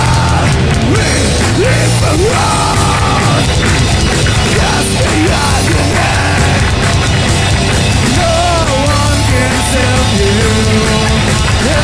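Metalcore band playing: bass guitar, electric guitar and drums, loud and unbroken, with melodic lines sliding and bending in pitch over a dense low end.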